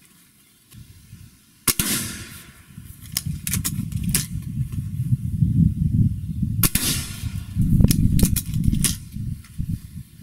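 Two shots from a Gamo Swarm Magnum .22 break-barrel air rifle, sharp cracks about five seconds apart, each punching a pellet into a car door. Between them come lighter clicks and low rumbling handling noise as the barrel is broken and cocked for the next shot.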